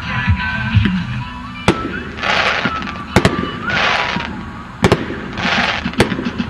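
Fireworks display: about five sharp bangs of bursting shells a second or so apart, two of them in quick succession, with short hissing rushes between them.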